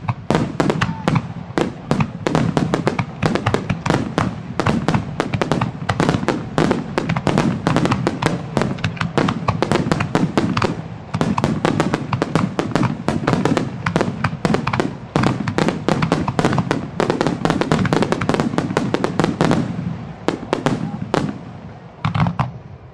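Aerial firework shells bursting in a dense barrage, many sharp bangs and crackles overlapping with hardly a gap, easing off about twenty seconds in.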